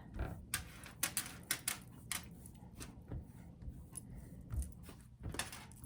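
Scattered light clicks and taps of hands working with dough and utensils on a kitchen counter, a dozen or so irregular small knocks.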